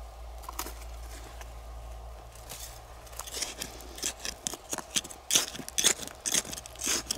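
A small hand digging tool scraping and scooping gritty soil, with repeated quick scrapes and crunches. The strokes start about two and a half seconds in and come thicker and louder from about the middle.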